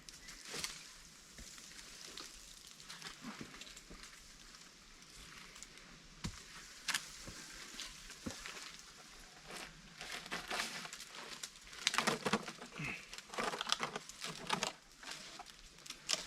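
Rustling, scraping and scattered sharp clicks as someone climbs in a dead tree and works a ratchet strap farther up it. The noise gets busier from about ten seconds in.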